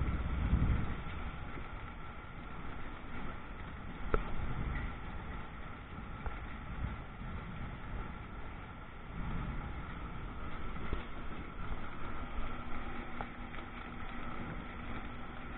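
Steady rain falling in a thunderstorm, with low rumbles swelling at the start and again about nine to twelve seconds in, and one sharp click about four seconds in.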